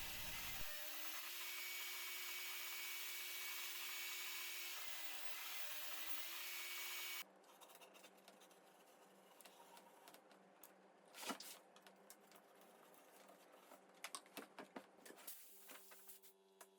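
Circular saw running steadily as it cuts into an MDF board, its pitch wavering slightly under load, then stopping about seven seconds in. Afterwards there are only a few light clicks and a single knock from the wood being handled.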